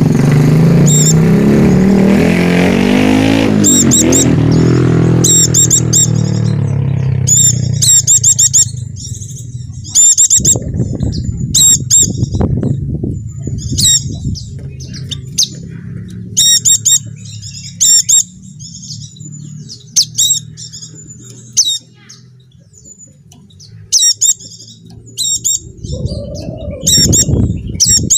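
White-eye (pleci) calls: short, high chirps in quick clusters, repeating about once a second. Over the first several seconds a motor engine runs loud and changes pitch, then fades away.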